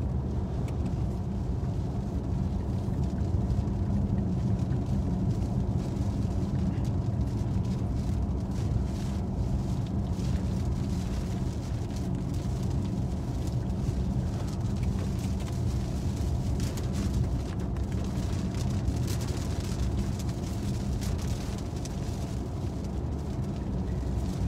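Steady road and engine noise inside a moving car's cabin, with scattered taps of rain on the windshield.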